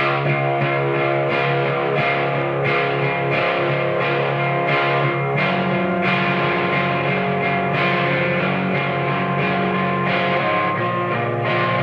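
Electric guitar played through a Benson Preamp pedal set for overdrive: full, driven chords strummed in a steady rhythm, coming in loud and sudden at the start, with the chord changing a couple of times.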